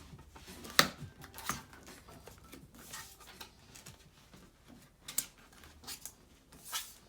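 A handful of separate sharp clicks and taps as a 12-inch MacBook's metal bottom case is handled, set back in place and closed onto the laptop, the first one the loudest.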